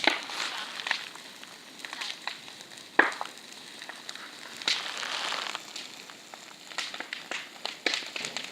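Bonfire with a car tyre on it, crackling and popping irregularly, with one sharp loud pop about three seconds in and a short hiss a little before the middle of the stretch. The noise comes from the tyre spitting bits out as it burns, which is put down to the rubber shrinking in the heat and the steel wires poking through.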